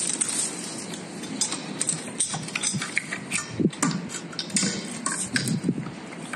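Irregular light clicks and knocks of a hand tool being handled against a truck's wheel hub, with some brief dull thuds.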